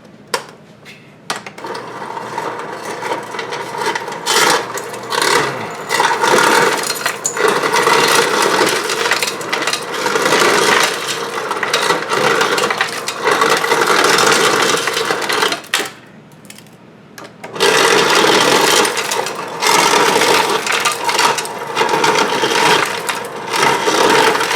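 Refrigerator door ice dispenser running in crushed-ice mode: the motor hums while the crusher grinds and crushed ice clatters out. It runs in two long spells with a short break a little past halfway, working again after a new micro switch was fitted.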